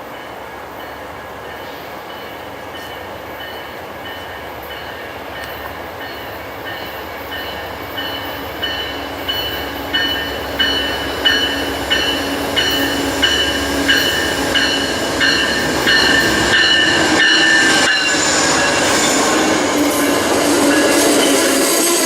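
A train approaching and passing close by, growing steadily louder. From about eight seconds in, its wheels click over the rail joints in a steady rhythm, about three beats every two seconds. Near the end, a high squeal of wheels on rail comes in.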